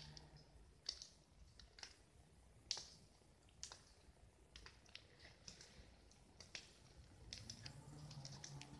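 Faint, sharp clicks spaced nearly evenly, about one a second, with faint music coming in near the end.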